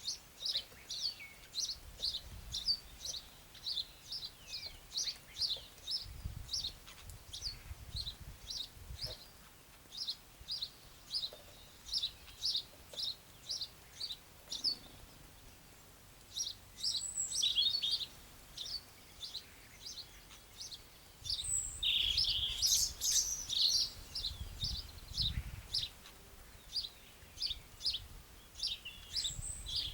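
Birds chirping: a steady series of short, high notes, about two a second, with busier, mixed calls joining just past the middle and again around three-quarters of the way. A faint low rumble comes and goes underneath.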